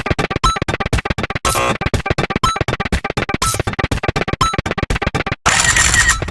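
A rapid-fire string of short, clipped electronic sound effects, many a second, chopping from one to the next as a binary counter ticks over, with a similar sound coming back about once a second. Near the end there is a brief dropout, then one longer, brighter sound.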